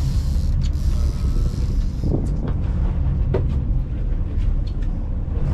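Boat engine running with a steady low rumble, wind buffeting the microphone, and a few brief knocks around the middle.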